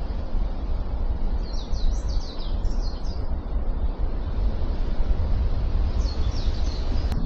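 A small bird calling in two quick runs of short, high, falling notes, over a steady low rumble.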